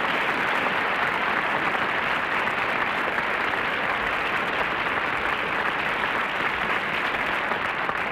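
Studio audience applauding, a steady dense clapping that holds level throughout.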